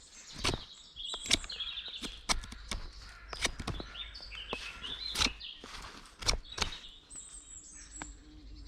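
Small birds chirping and singing, with about a dozen sharp knocks and clicks scattered irregularly close by.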